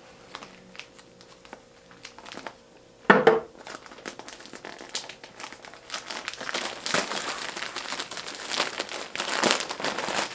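White plastic poly mailer bag crinkling and rustling as it is handled and pulled open, the crinkling denser and louder in the second half. A single short, loud sound about three seconds in.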